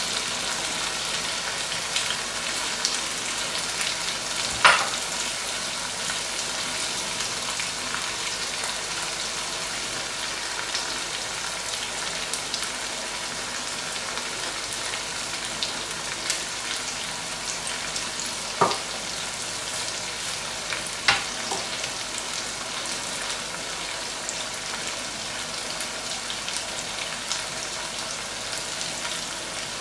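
Chicken karahi sizzling steadily in its oil in the karahi pan, a constant crackling hiss. Three louder pops stand out, one early and two close together about two-thirds of the way through.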